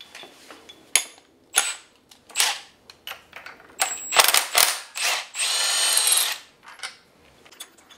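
Cordless power tool tightening the nut that holds the camshaft sprocket and washer on a Porsche 911 engine: several short clicks and brief trigger bursts, then one steady run of about a second.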